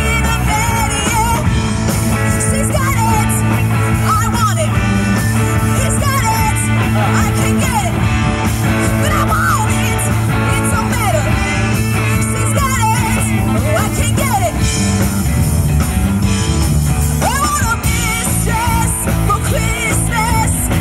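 Live amplified rock band playing: drum kit and electric guitars with female lead vocals singing over them.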